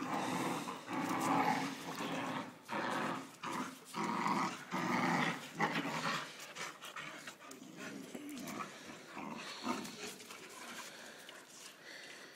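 Bull terrier and American Staffordshire terrier growling in rough play, in repeated bursts, louder in the first half and quieter later.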